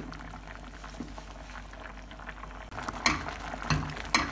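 Spoon stirring and mashing soft sweet potato in milk bubbling on high heat, the thickening stage of sweet potato kheer. Two sharper knocks of the spoon against the pan near the end.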